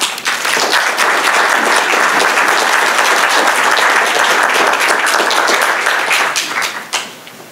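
Audience applauding: the clapping comes in at full strength at once, holds steady, then thins out and dies away near the end.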